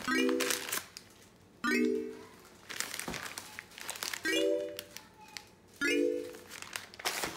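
Calm hip-hop background music with a soft repeating chord, and light crinkling of butcher paper as wrapped meat packages are picked up and handled.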